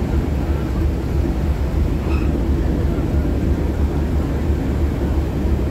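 Steady low rumble of a boat's engine, heard from on board with the churn of the water around the hull.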